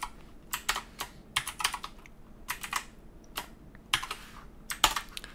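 Typing on a computer keyboard: small irregular groups of keystroke clicks with short pauses between them.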